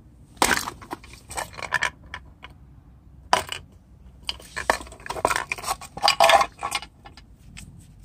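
Metal tactical pen stabbing into an empty, newspaper-wrapped aerosol can: a sharp metallic hit about half a second in, another about three seconds in, then a quick run of clinks and crunching metal as the can is pierced and handled.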